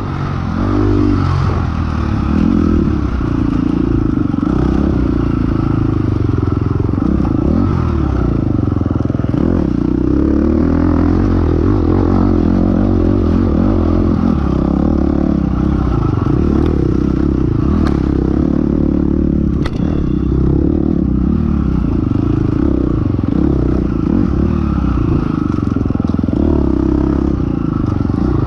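Dirt bike engine running hard on the bike's own camera, its pitch rising and falling with the throttle, with clatter from the bike over rough ground and a few sharp knocks about two-thirds of the way in.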